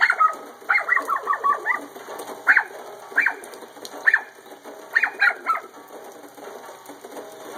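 Small dog barking at the rain: a series of short, sharp barks, several in a quick run about a second in, then single barks every second or so, and another quick run near the five-second mark.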